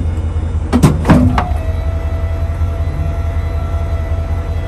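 Pickup truck engine running with a steady low rumble while the fifth-wheel trailer's pin-box funnel guides the Andersen hitch ball into its mounting point. About a second in there are a few sharp metal clunks as the hitch seats, and after them a faint steady tone.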